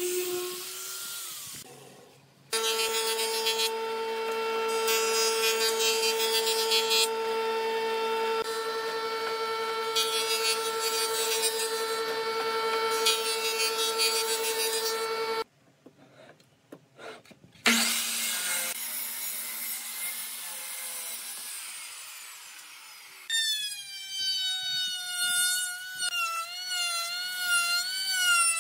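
A run of woodworking power tools. An angle grinder with a sanding disc fades out in the first couple of seconds. A jointer-planer then runs with a steady hum for about thirteen seconds and stops. After a short gap, a handheld trim router cuts wood from about five seconds before the end, its motor whine wavering up and down in pitch under load.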